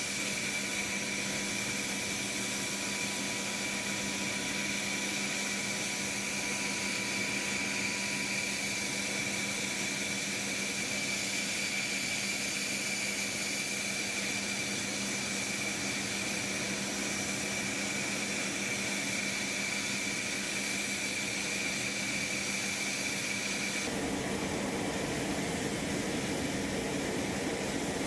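Steady turbine whine from a parked HH-60W Jolly Green II helicopter: a high tone over an even rush, with no rotor beat. Near the end the whine drops away and a duller, lower rush takes over.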